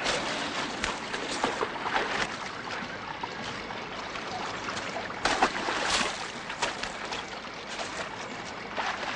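Water splashing and sloshing in a stone fountain basin as hands churn it, in irregular splashes over the steady trickle of the fountain's spout.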